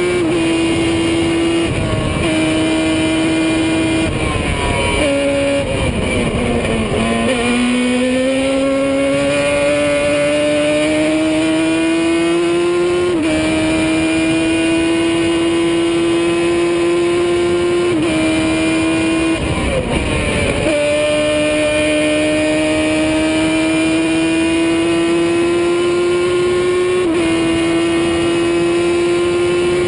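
Onboard sound of a Formula Gloria 1000 single-seater's engine at high revs, its high note climbing slowly through each gear and dropping sharply at upshifts, about thirteen and twenty-seven seconds in. About five seconds in the note falls away with braking and downshifts, then climbs back slowly as the car pulls out of the corner. There is a shorter dip around twenty seconds in.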